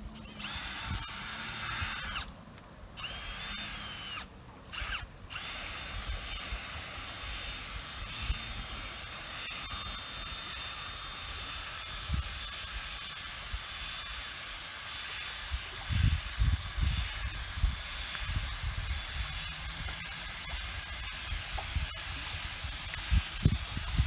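Cordless drill running a One-Jack lifting jack to adjust a boat lift, a steady motor whine under load. It stops and restarts twice in the first few seconds, then runs on steadily.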